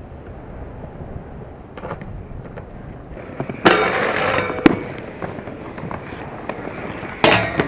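Skateboard wheels rolling on pavement, with a sudden loud board impact a little before halfway, followed by about a second of louder scraping or rolling, and a sharp clack just after it. Another loud board impact comes near the end.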